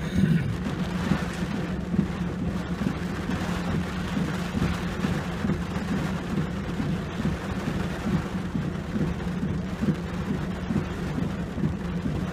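Rain falling on a pickup truck, heard from inside the cab, over a steady low hum.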